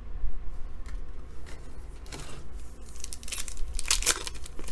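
A 2017-18 Panini Hoops trading card pack's wrapper being torn open by hand. Soft handling at first, then crinkling and ripping in several quick bursts, loudest near the end.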